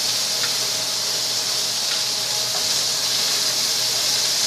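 Steaks sizzling in hot butter in a frying pan while they are basted with a spoon: a steady, even hiss.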